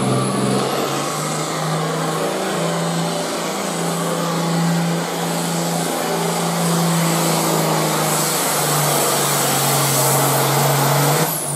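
John Deere diesel farm tractor engine running flat out under full load, pulling a weight-transfer sled, with a steady, loud note. About 11 seconds in, the engine is suddenly throttled back as the pull ends.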